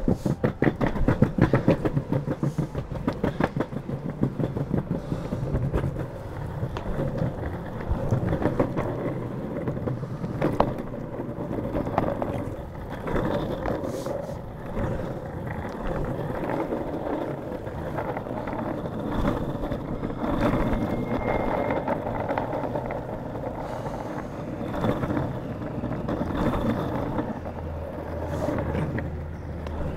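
Longboard wheels rolling. A rapid run of clacks comes over pavement slab joints in the first few seconds, then it settles into a steady rumble on road asphalt.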